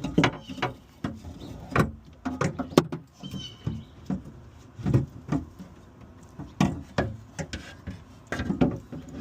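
Irregular clicks, knocks and rattles of hands and parts working a stuck power window regulator inside a truck door, with a short high squeak about three seconds in.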